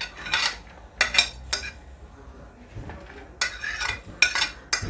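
A spoon scraping and tapping on a ceramic plate as shredded vegetables are pushed off it into a glass bowl: a few short scrapes early, a quieter spell, then a quicker run of scrapes and clinks near the end.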